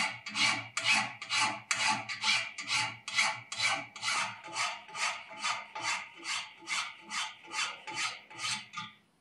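Hand file rasping across Rhodesian teak knife handle scales in steady back-and-forth strokes, a little over two a second, rough-shaping the wood to a half-round; the filing stops just before the end.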